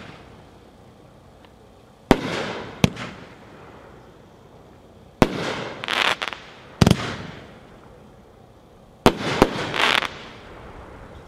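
Phantom 'Guns of Navaronne' 12-shot consumer firework cake firing shots one at a time: about six sharp bangs of launches and aerial bursts, spaced irregularly, some followed by a brief hiss.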